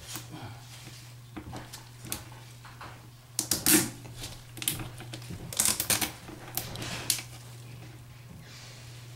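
Gloved hands fitting brass closet bolts and their plastic washers into the slots of a toilet flange: scattered clicks and rattles, with clusters of them about three and a half seconds in and again around six seconds, over a steady low hum.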